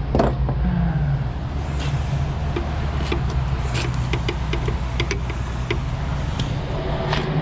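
Truck engine idling steadily, with scattered light metallic clicks and clinks over it.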